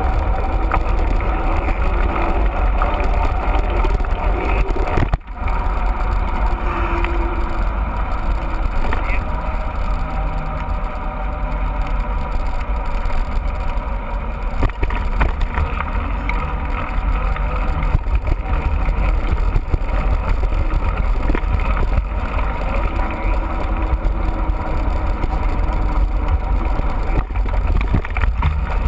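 Steady rumbling wind buffeting on the microphone of a camera riding along on a mountain bike, mixed with tyre and trail noise; it drops out briefly about five seconds in.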